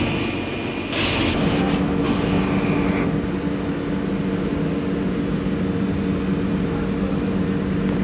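London Underground tube train at the platform: a high-pitched brake squeal that fades out over the first few seconds, a short hiss of released air about a second in, then a steady low hum as the train stands.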